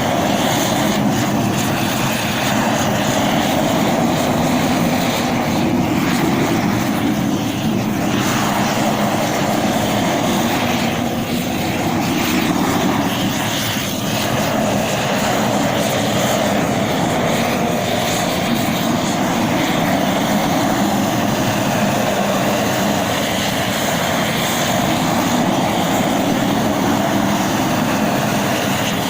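Propane roofing torch burning with a steady, unbroken roar, heating torch-on bitumen membrane.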